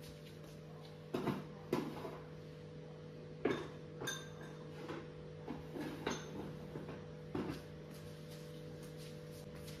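Hard kitchen items handled and set down on a countertop: about six light knocks, two of them with a short bright clink, over a steady low hum.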